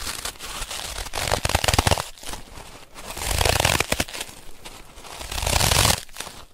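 Crunching, crinkling noise made of many small crackles, swelling into two louder passages of about a second each, in the middle and near the end.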